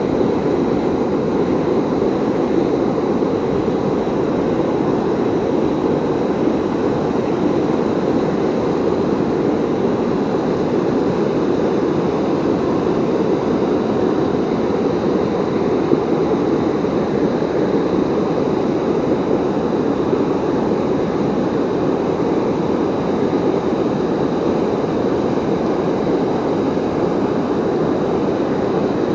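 River waterfall, falling water rushing steadily and evenly.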